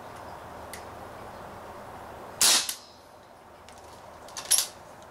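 A CO2-powered Umarex Smith & Wesson Model 29 BB revolver firing one shot about halfway through, a single sharp crack. A second, shorter sharp sound follows near the end.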